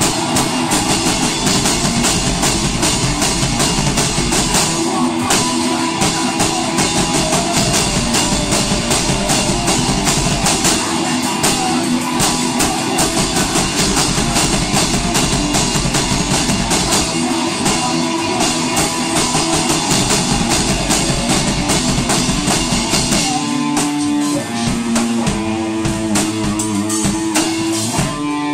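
Punk rock band playing live in a room: distorted electric guitar over a drum kit, loud and fast. Near the end the drums drop back and the guitar chords stand out.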